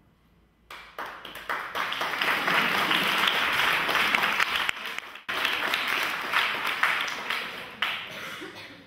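Audience applauding, starting about a second in, with a brief break about five seconds in and fading out near the end.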